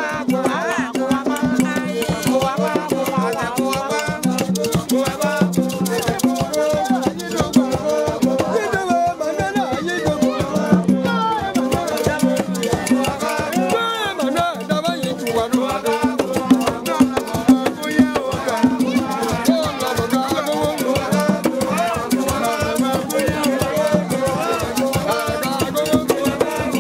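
Live traditional music: people singing together over hand percussion, with shaken rattles and drums keeping a steady beat.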